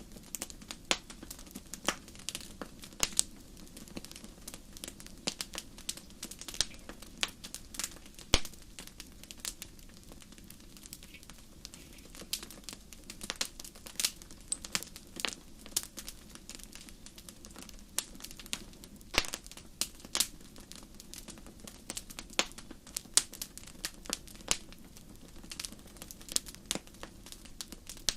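Sharp, irregular crackling clicks, a few a second and uneven in loudness, over a faint steady low hum: a continuous crackle ambience.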